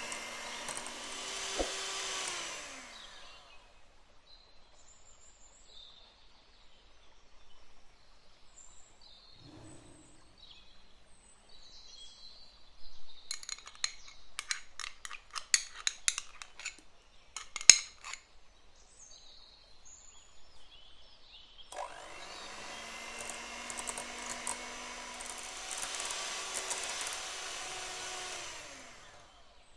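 An electric hand mixer's whisks beat a mascarpone and cream mixture in a glass bowl, then the motor slows to a stop about three seconds in. In the middle come a run of sharp clicks and scrapes as a metal spoon scrapes caramel out of a glass measuring cup. About two-thirds of the way through the mixer starts again, runs steadily for about seven seconds, and winds down near the end.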